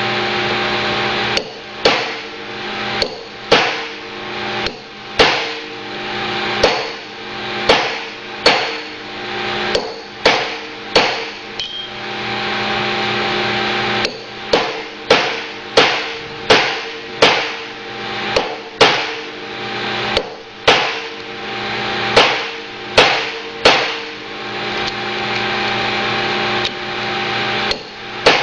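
Hammer driving a chisel against the old wear sleeve on a gear reducer's worm shaft to split it loose: a long run of sharp metal-on-metal blows, about one a second with a short pause about halfway through, each ringing metallically.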